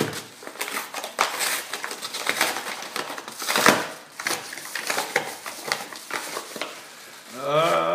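Padded paper mailing envelope being handled and torn open by hand: irregular crinkling, crackling and tearing of paper, loudest about three and a half seconds in. Near the end a man's voice starts up.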